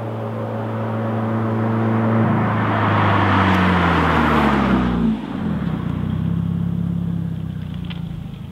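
Drive-by of a 2018 Subaru WRX's turbocharged flat-four with a Nameless Performance 3-inch axle-back muffler delete, at about 35 mph in second to third gear. The exhaust note grows louder as the car approaches, is loudest just before it passes, drops suddenly about five seconds in, then fades as the car drives away.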